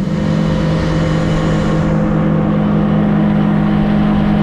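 Boat motor running steadily at cruising speed while the boat travels across the flats, a constant droning pitch over a rough rumble.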